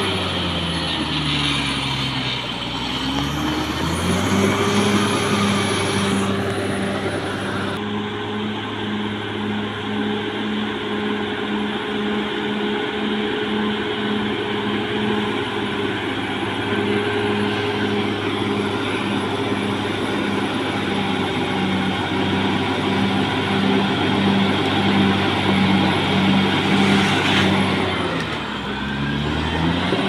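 Caterpillar D6R XL bulldozer's diesel engine running steadily under work. Its engine speed drops and comes back up about two seconds in, and drops again near the end.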